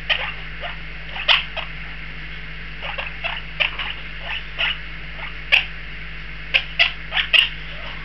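Baby monk parakeets giving short, sharp begging squeaks while being hand-fed formula from a syringe, coming irregularly about two or three a second.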